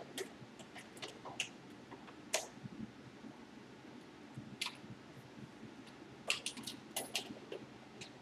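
Scattered light clicks and ticks of a metal nut and washer being hand-tightened on a gooseneck work light's threaded base under a wooden sewing-machine table, with a small cluster of clicks near the end.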